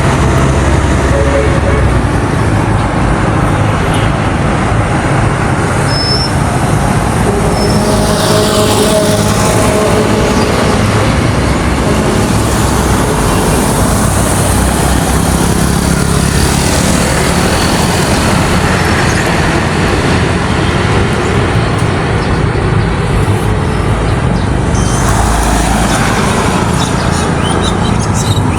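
Steady road vehicle noise: a continuous low rumble with traffic noise and no pauses.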